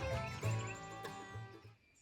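Background music with plucked strings, fading out and stopping near the end.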